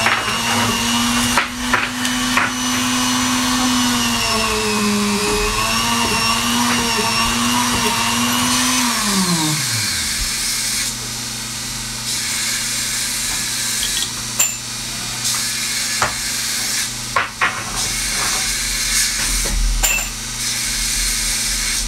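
Small electric motor of a bench bead-drilling machine running with a steady hum, its pitch dipping slightly as the bit bores into a wooden ball, then spinning down and stopping about nine seconds in. After that a steady background noise remains, with a few sharp clicks.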